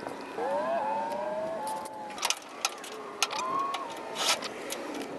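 Electric drill driving a spot weld cutter into sheet metal to drill out spot welds, its motor whine rising as it spins up, twice, with a few sharp clicks in between.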